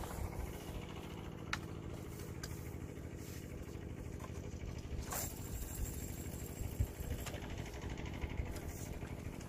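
A fishing rod cast: a sharp swish about halfway through, then the line hissing off the spinning reel for about two seconds before it stops, with a few light clicks of the reel. A steady low mechanical hum runs underneath.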